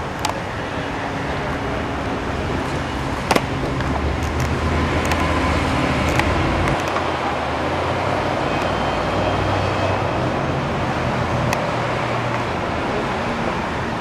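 A motorcade of police cars and black SUVs driving past, a steady hum of engines and tyres that grows louder through the middle and eases off near the end, with a single sharp click about three seconds in.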